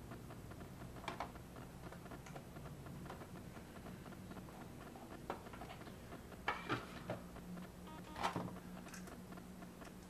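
Light clicks and taps of small metal and plastic parts as precision screwdriver bits are handled and fitted to the driver, a few at a time, most of them between about six and nine seconds in, over a faint steady hum.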